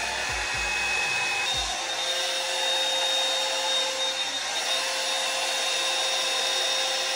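Handheld hair dryer running steadily, its whine shifting to a different pitch about a second and a half in, with a few soft low thumps in the first second and a half.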